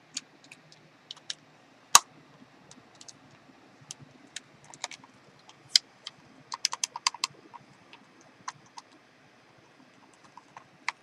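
Small plastic clicks and taps at irregular intervals as the parts of an NES controller are handled and fitted into its shell, with one sharper click about two seconds in and a quick run of clicks a little past halfway.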